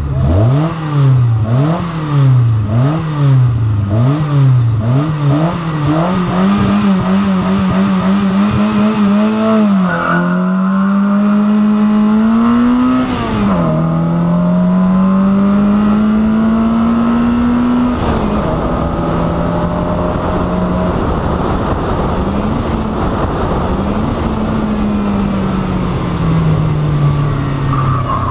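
Peugeot 104 ZS Group 2 race car's four-cylinder engine at hard throttle. The revs rise and fall quickly over and over at first, then climb in longer pulls, each broken by a sharp drop at a gear change.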